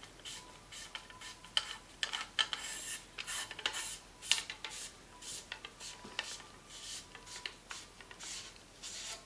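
Phosphor bronze bore brush on a cleaning rod being worked slowly through a 20-bore Beretta Silver Pigeon over-and-under barrel, turning as it goes: a run of irregular scratchy rasps of the bristles scrubbing the bore. This spreads the Young's 303 cleaner along the barrel as a first scrub.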